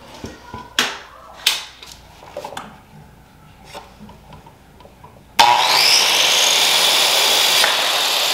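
A few light clicks and knocks, then about five seconds in an electric power saw starts abruptly and runs loud and steady, cutting a wooden trim board.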